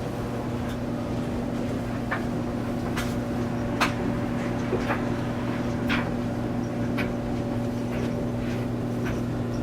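Steady low electrical-mechanical hum of running boiler-room equipment, with a few light clicks or ticks scattered through it.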